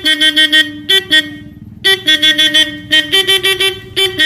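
Aftermarket horn module on a stainless-steel owner-type jeep sounding its horn in rapid patterned toots: groups of short beeps, about five a second, separated by brief gaps, with the pitch stepping up and down between groups.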